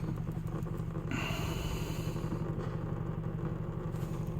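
A steady, low engine hum with a fast, even pulse, like an engine idling. About a second in, a hiss joins it.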